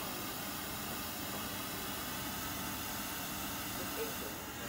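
Steady hiss of background noise, with a faint click about four seconds in.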